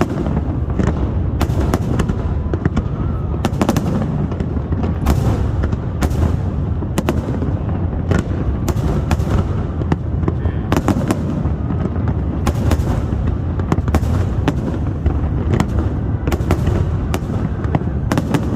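Fireworks display: a steady stream of sharp bangs, about one or two a second, over a continuous low rumble.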